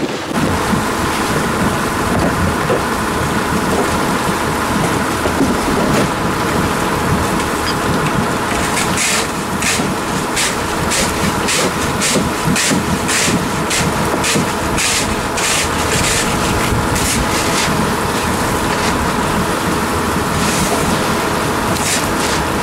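Fishing boat's engine running steadily, with a run of short strokes about two a second from about nine to seventeen seconds in.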